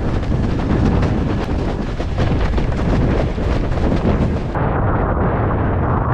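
Strong wind buffeting the microphone over the rush and slap of water as a windsurf board planes fast across choppy sea, with many small knocks from the chop. About four and a half seconds in the sound turns duller, losing its hiss.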